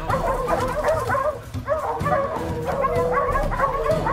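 A pack of hunting hounds baying and yelping with many voices overlapping, the sign that they have a mountain lion bayed up on a dead stump.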